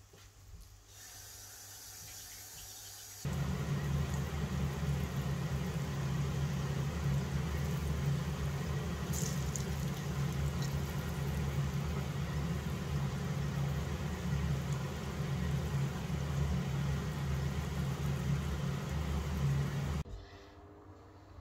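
Steady low mechanical hum and whir that starts abruptly a few seconds in and cuts off abruptly near the end, heard over oil sizzling in a frying pan with egg-battered zucchini slices.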